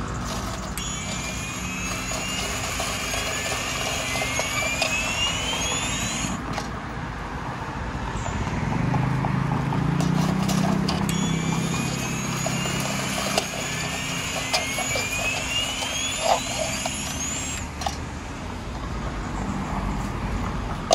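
Street traffic: vehicles passing, with a slowly rising whine as they pull away twice, and an engine running louder from about nine to fourteen seconds in. A few light clicks sound in the second half.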